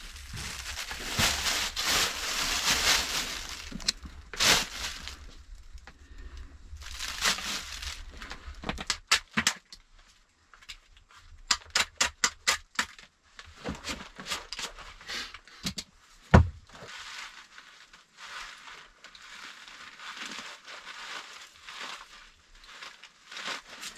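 A knife scraping and shaving bark off a branch, followed by a run of sharp clicks, one loud thump about two-thirds of the way through, then aluminium foil crinkling as it is wrapped around the head of a homemade wooden torch.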